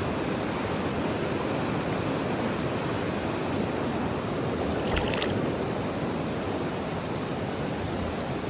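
River water rushing over rocks: a steady, even rush with a short knock about five seconds in.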